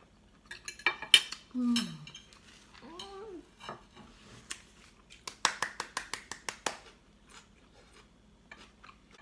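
Cutlery clinking on plates and a short vocal exclamation with falling pitch about a second in, then a fast run of about a dozen hand claps lasting a second and a half, in clapping for joy.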